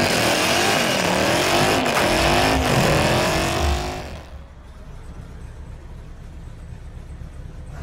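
Dodge Charger doing a burnout: the engine revs up and down over the noise of a spinning tire. About four seconds in the sound drops away suddenly to a quiet low background.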